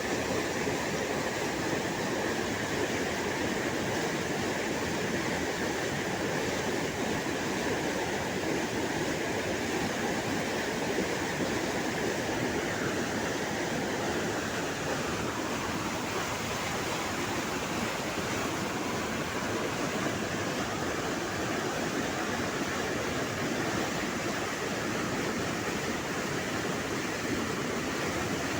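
The Cauvery river rushing fast and with force, its flow high with water let down from the Mettur dam: a steady, unbroken roar of moving water.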